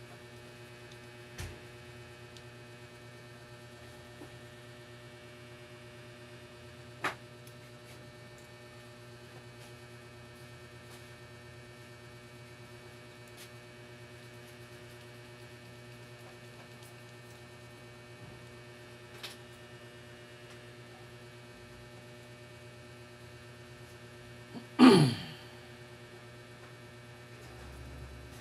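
Steady electrical mains hum, with a few faint clicks and one louder short sound with a falling pitch near the end.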